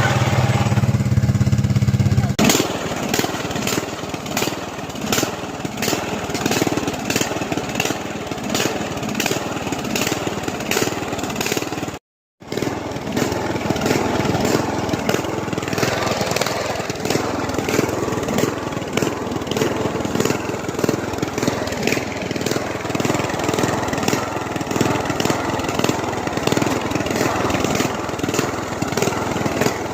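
Lawn mower engine running steadily, then rougher and harder-working from about two seconds in, with faint clicks about twice a second; cut off briefly near the middle.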